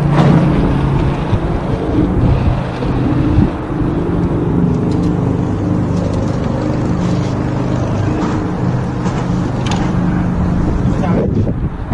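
Low steady engine drone with shifting pitch, broken by a few knocks, the loudest about three seconds in.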